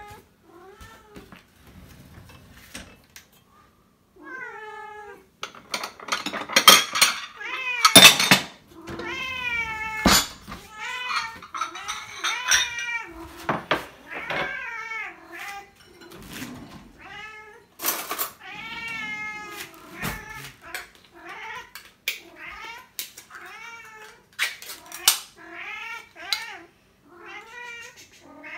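House cats meowing over and over, begging for the wet food being served to them, mixed with sharp clicks and clinks of a metal can, a spoon and glass bowls as the food is scooped out.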